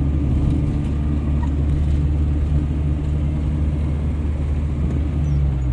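Steady low rumble of a moving car heard from inside the cabin: engine drone and road noise.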